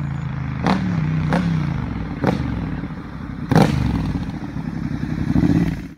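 Triumph Thruxton 1200R's 270-degree-crank parallel twin, breathing through Arrow headers and Remus mufflers, ridden on the road: the engine note rises and falls with the throttle, broken by four sharp cracks, and grows louder near the end as the bike approaches.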